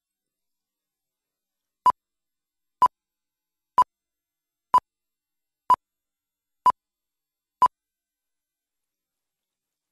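Seven short, identical electronic beeps, evenly spaced one a second, counting down to the start of the programme.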